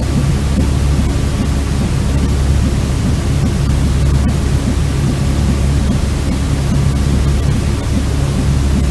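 Steady white-noise sleep sound for babies: an even hiss over a strong deep rumble, unchanging throughout.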